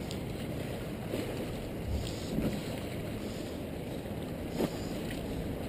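Wind buffeting the microphone over water washing against jetty rocks, with a brief tap a little past the middle.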